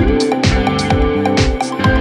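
Background music with a steady beat, about two beats a second, in an electronic dance style.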